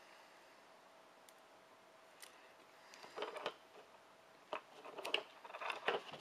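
A thin metallic foil packet crinkling and crackling as it is picked up and handled, in short bursts from about three seconds in.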